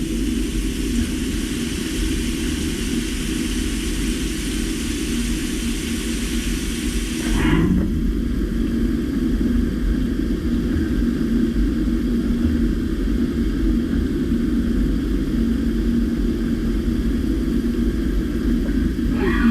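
CNC vertical milling machine running on steel with a steady low hum and a high hiss. The hiss stops about seven seconds in with a falling whine, and another falling whine comes near the end.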